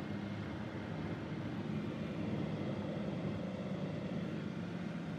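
Steady road and engine noise inside a moving car's cabin at highway speed, a low even hum.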